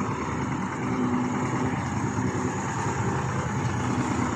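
Steady motor-vehicle running noise: a continuous rumble with a faint low engine hum.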